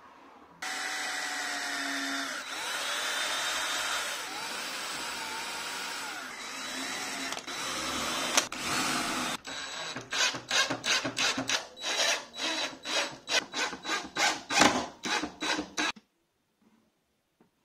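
A power tool runs steadily for about nine seconds, its motor pitch shifting a little. It then changes to a quick series of short strokes, about three a second, and stops abruptly near the end.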